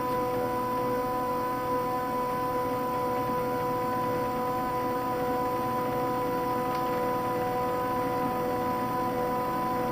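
Stepper motors of a home-built CNC hot-wire foam cutter driving the lead screws through a slow cut: a steady, noisy whine of several high tones held at an even pitch.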